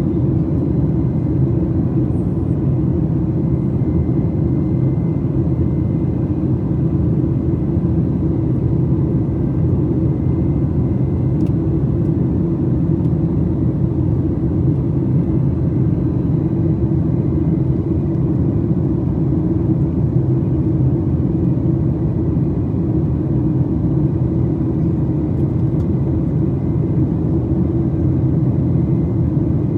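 Steady, loud cabin drone of a Boeing 737 MAX 8 heard from a passenger seat: its CFM LEAP-1B engines running and air rushing past the fuselage, a deep rumble with a few faint steady whining tones above it.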